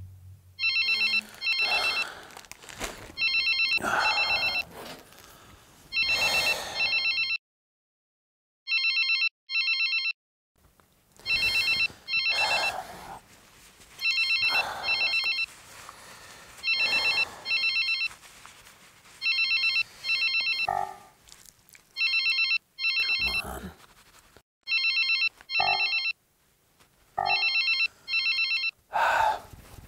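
Telephone ringing over and over in a double-ring pattern: a pair of short electronic trills about every two and a half seconds, an incoming call going unanswered.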